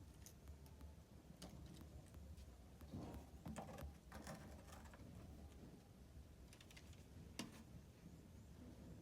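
Faint, scattered clicks and light knocks, busiest in the middle and with one sharper click near the end, over a low steady hum.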